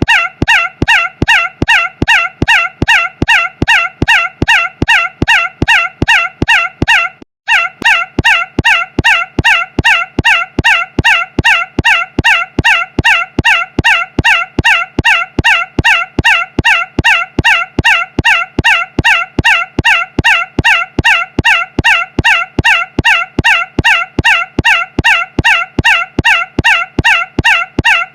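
A short, loud, high-pitched sound looped over and over, about three times a second, identical each time, with a brief break about seven seconds in.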